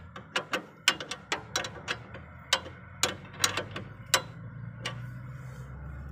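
A run of sharp, irregularly spaced metallic clicks and taps from hand tools being worked on the underside of a car, about fifteen in six seconds, over a steady low hum.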